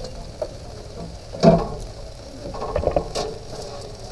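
Metal grill tongs clicking and knocking as racks of smoked ribs are lifted off a kamado grill's rib rack and set down on the side tray. One louder knock comes about a second and a half in, then a few quick clicks near three seconds.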